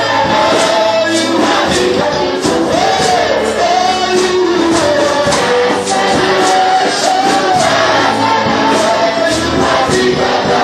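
Worship song played by a band, with singing voices over a steady beat of about two strokes a second.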